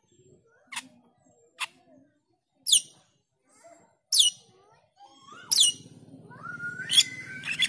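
Asian glossy starling calling: a run of short, sharp, high whistled notes that fall steeply in pitch, about one every second. From about five seconds in, a buzzy, rough chattering warble with rising notes joins them.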